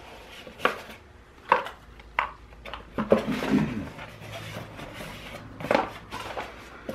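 Cardboard box being opened and handled: a few sharp taps and knocks as the lid flaps are folded back, with paper and packaging rustling as the contents are shifted.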